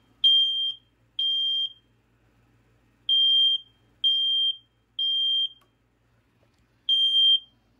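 First Alert SA9120B smoke alarm's horn sounding under a test-button press: loud, high-pitched beeps of about half a second each, in groups of three with a pause between groups. This is the temporal-three evacuation pattern, and it shows that the alarm works.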